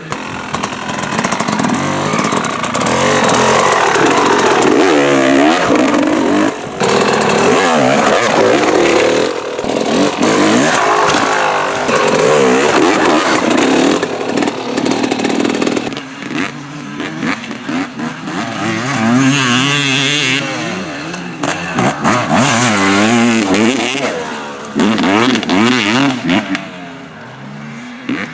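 Yamaha WR 250 two-stroke enduro motorcycle being ridden hard, its engine revving up and dropping back again and again. It eases to a lower, uneven note near the end.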